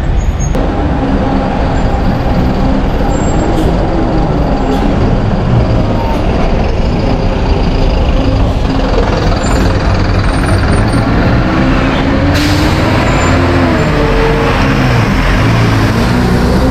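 City bus engine running close by, its pitch rising and falling. A sudden hiss starts about twelve seconds in and carries on over the engine.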